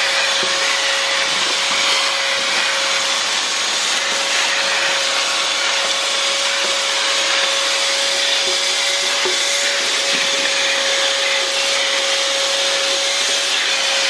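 Schulz Elektro 1400-watt wet-and-dry vacuum running steadily: an even, loud rush of air with a constant whine as its hose nozzle sucks crumbled acrylic putty and dust off a wooden workbench.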